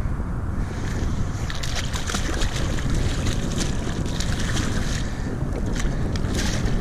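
Wind buffeting the microphone on a fishing kayak on open water, with water sloshing. From about a second and a half in, scattered sharp clicks and small splashes run over the rumble.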